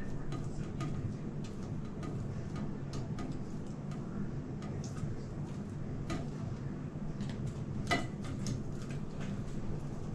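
Hand grating on a metal box grater standing on a plate: irregular light clicks and scrapes as food is rubbed down the blades, with the sharpest click about eight seconds in. A steady low hum runs underneath.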